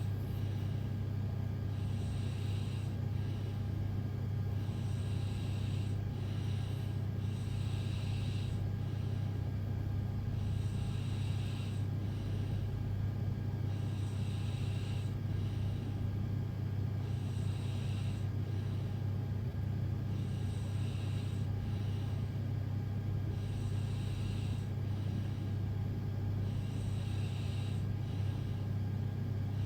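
Person snoring in sleep: a pair of breathy in-and-out sounds about every three and a half seconds, over a steady low hum.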